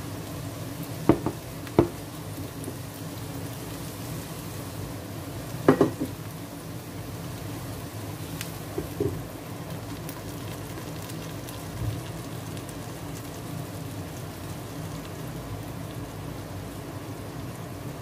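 An omelette sizzling steadily in oil in a nonstick frying pan, with a few sharp clinks about a second in and again around six seconds in as a glass lid is set on the pan.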